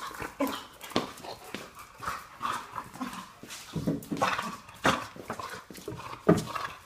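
A dog making a string of odd vocal noises: short whines, grumbles and yips, coming in irregular bursts.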